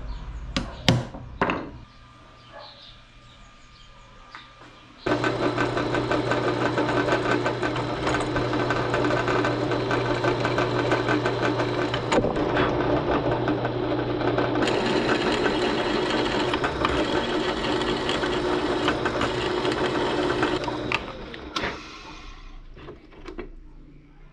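A few sharp knocks, then an electric power tool starts suddenly and runs steadily for about sixteen seconds with a low hum, working on metal, before switching off and winding down.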